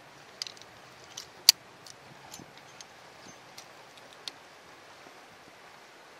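Metal climbing hardware clinking: carabiners and an abseil belay device knocking and clicking as the rope is rigged, a handful of sharp scattered clicks, the loudest about one and a half seconds in, over a faint steady hiss.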